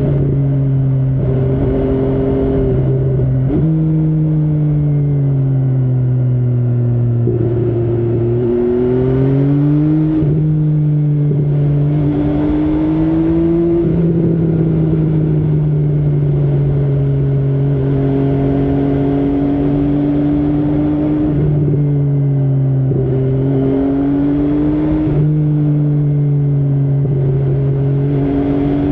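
MV Agusta Brutale 800's inline three-cylinder engine running under way, its pitch gliding and jumping up and down several times as the revs change through the gears.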